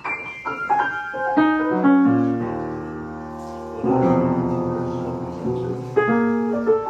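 Piano music: a run of quick notes, then two held chords, then quick notes again near the end.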